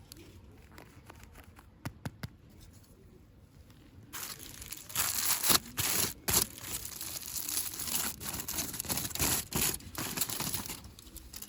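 Packaging being crinkled and torn open by hand: a couple of sharp clicks about two seconds in, then from about four seconds in a loud, dense crinkling and tearing that dies down near the end.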